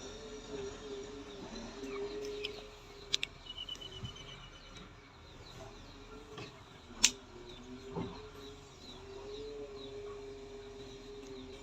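Birds chirping, with a short trill about three seconds in, over a faint steady hum. A few sharp clicks come about three and seven seconds in.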